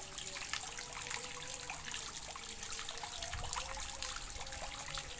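Water trickling steadily into a fish pond, with many small drips and splashes.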